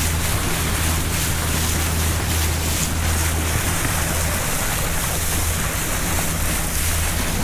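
Boat engine running steadily as the boat heads out under way, with water rushing along the hull and wind on the microphone.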